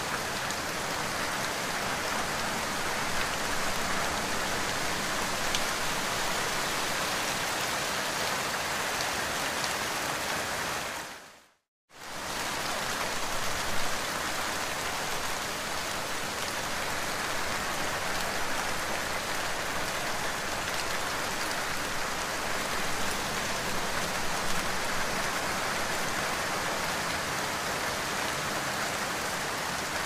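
Steady rain falling, an even hiss of many drops. About eleven seconds in, it fades briefly to silence and comes straight back.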